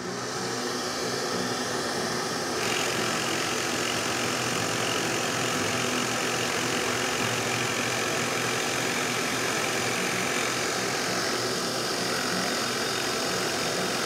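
Old benchtop drill press running as a large Forstner bit bores into a wooden board, together with the rush of a vacuum pulling chips away through a dust pickup in the fence behind the bit. A steady whir with a hissing air noise that grows brighter about two and a half seconds in.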